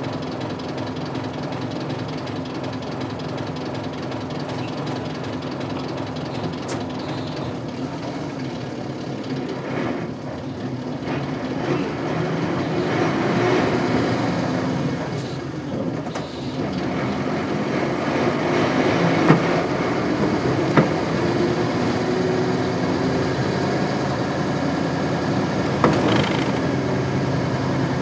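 Isuzu Cubic KC-LV380L city bus's 8PE1 diesel engine running, heard from inside the bus. The engine sound swells about a dozen seconds in, with a few sharp knocks later on.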